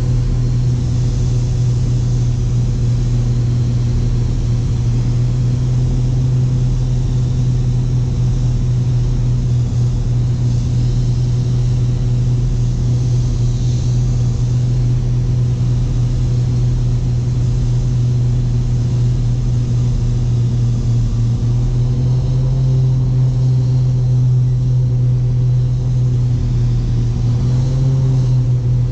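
Twin engines and propellers of a Piper Seneca V, turbocharged Continental six-cylinders, droning steadily at approach power, heard inside the cockpit as a loud, even hum. Its tone shifts slightly in the last few seconds as the aircraft nears the runway.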